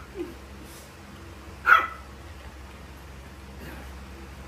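Shih Tzu giving one short, sharp bark a little under two seconds in, over a faint steady low hum.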